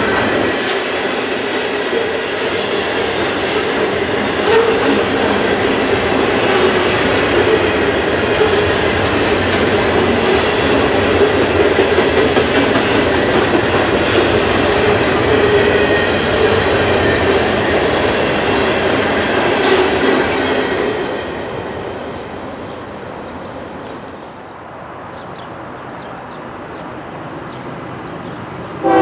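A long freight train of steel waste gondolas rolling past close by: steady clatter and rumble of steel wheels on the rails, with a steady high tone ringing over it. About two-thirds of the way through it drops suddenly to a quieter, distant rumble.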